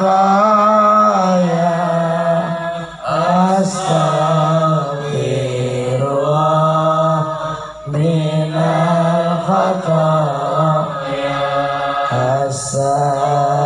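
Sholawat, Arabic devotional chant in praise of the Prophet, sung by a man through a microphone and PA system. Long wavering melodic notes are drawn out in phrases, with brief breaks between them.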